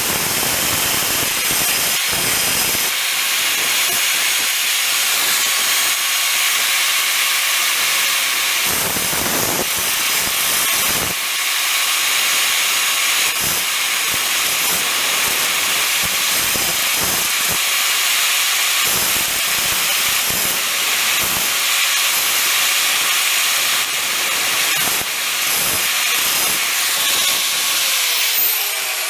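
Grinder wheel grinding a steel drill bit into a spot weld cutter: a steady, harsh hiss of metal on the abrasive wheel, with many short surges as the bit is pressed in and shifted. A falling whine near the end.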